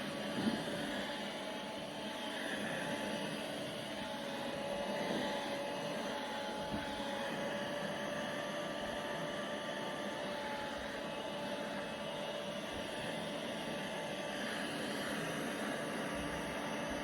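Vacuum cleaner running steadily, a rushing noise with a motor whine held at one pitch, and a brief bump about half a second in.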